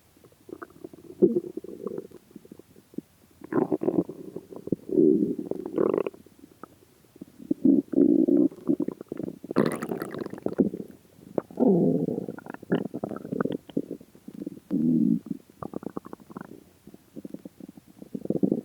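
A person's empty stomach growling, recorded close up, after about three days without food. It gives a string of gurgling rumbles every second or two, and the loudest, about halfway through, has a higher squealing gurgle.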